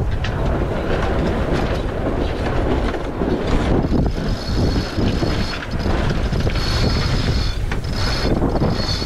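Sailboat under way: wind buffeting the microphone over the rush of water along the hull, with a few sharp clicks and a thin high squeal from about four seconds in.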